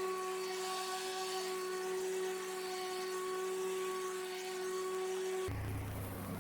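Greenworks Pro 80V electric lawn mower running, a steady motor whine with a fixed pitch. About five and a half seconds in, the sound switches suddenly to a lower, rougher hum.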